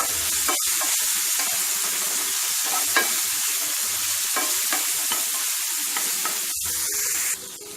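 Chopped onion sizzling in hot oil in a pan as it is sautéed, with a steady hiss and the spatula now and then scraping and tapping the pan. The sizzle drops off suddenly near the end.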